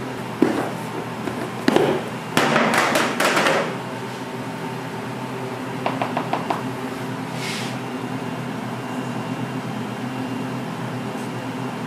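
Kitchen work handling utensils or moulds: two sharp knocks, then a short run of clattering about two to three and a half seconds in, and a few light ticks around six seconds. A steady machine hum runs underneath.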